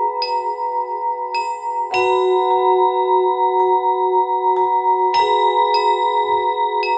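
Marimba notes struck with mallets, about once a second, each with a bright ringing attack, over a sustained chord that holds between the strokes and shifts at a few of them.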